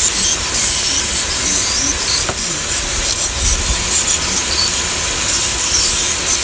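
Handheld rotary carving tool grinding and sanding a cork decoy block: a steady whir with a rasping rub that swells and eases as the bit is pressed into the cork.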